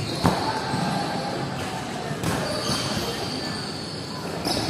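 Futsal ball being kicked and bouncing on a hard court: a sharp thud about a quarter second in, with further knocks around two seconds and near the end, over players' and spectators' voices.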